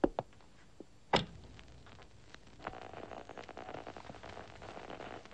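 A few sharp clicks and a heavier knock about a second in, then crackling radio static from about two and a half seconds in, as a radio comes on just before a news broadcast.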